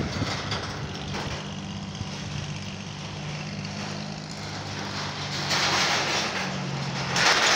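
Small motorbike engine running steadily on a steel-grate bridge, with louder rushes of noise about five and a half seconds in and again near the end.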